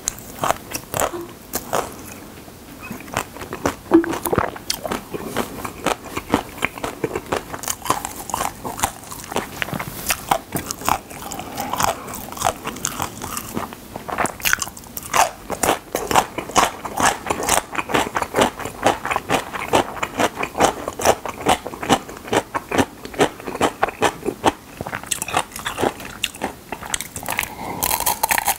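Crunching and chewing of dry, uncooked instant-noodle pieces: a dense, irregular run of crisp bites and crackles.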